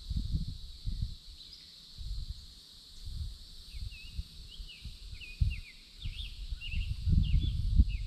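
Wind buffeting the microphone in irregular low gusts, strongest near the end, over a steady high insect drone. About halfway in, a songbird starts a run of short, quick sliding chirps.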